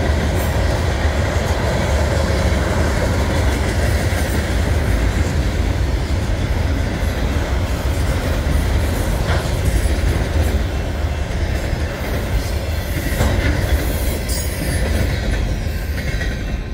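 Manifest freight train cars rolling past close by: a steady rumble of steel wheels on the rails, with a few sharp clicks from the rail joints.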